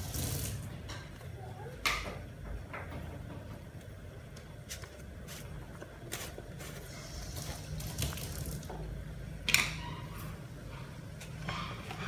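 A pot of corn soup at a rolling boil, bubbling steadily over a low rumble, with scattered sharp clicks and two louder knocks, one about two seconds in and one later on.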